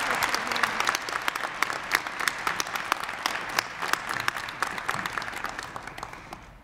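Audience applause from many people clapping, thinning out and dying away towards the end.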